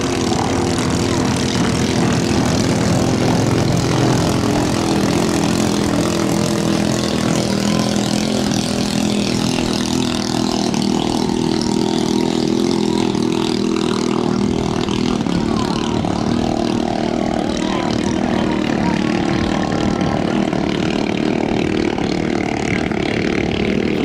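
Small racing boat's underbone motorcycle engine driving a long-shaft propeller, running at speed with a steady, high drone.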